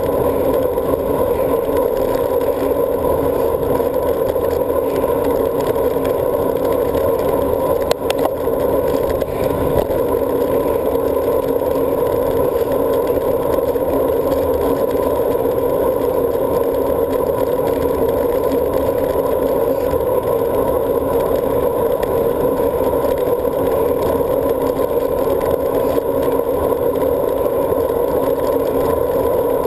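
Steady wind and tyre noise from a road bike riding at speed, picked up by a handlebar-mounted GoPro camera in its housing, with a dull, constant hum. A single click about eight seconds in.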